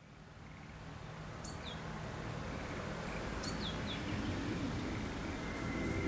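Outdoor countryside ambience fading in, with a small bird giving a short high call that slides steeply down in pitch, repeated a few times about two seconds apart.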